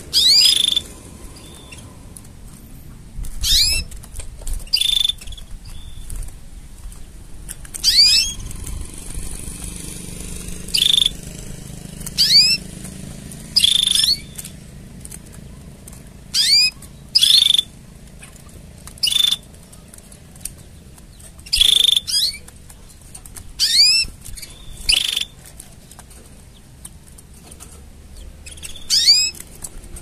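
Domestic canary singing in short phrases of rapid, upward-sweeping high notes, about a dozen phrases separated by pauses of one to three seconds.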